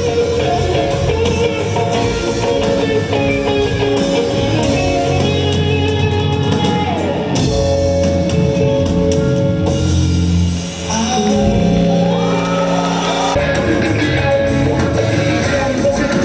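A rock band playing: electric guitars, bass and a drum kit, with a voice singing. The music dips briefly about eleven seconds in, then carries on.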